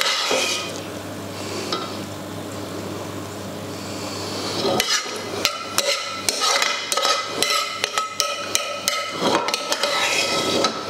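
A metal spoon scraping and knocking against a frying pan as the last of the tomato sauce is scooped out. About halfway in come a run of quick clinks and knocks lasting several seconds, after a quieter first half.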